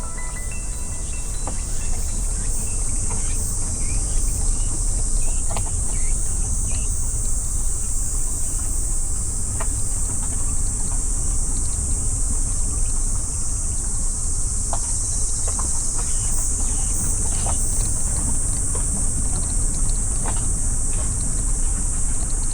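Steady, high-pitched insect chorus over the low, constant rumble of a car driving along a road.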